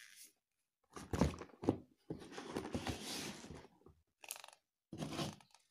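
Handling noise from a phone gimbal and its foam-lined hard carrying case: a few dull knocks and a longer stretch of rubbing and rustling, with shorter bumps near the end, as the gimbal is lifted out and the case is shut.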